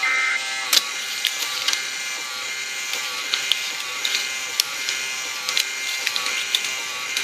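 The last short burst of an EAS end-of-message data tone, a warbling buzz. It is followed by a steady hiss with scattered crackles and clicks.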